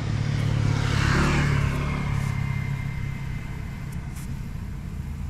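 Air hissing out of a motorcycle tyre valve through a pressure gauge's release button as the tyre pressure is lowered: a hiss about a second in that settles into a thin whistle and fades. A steady engine hum runs underneath.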